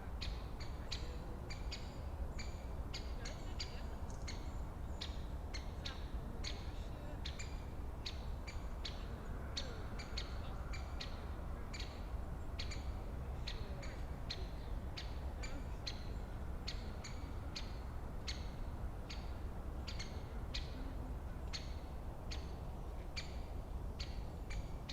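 Woodland ambience: a bird repeats a short, sharp call about twice a second, over a steady low rumble.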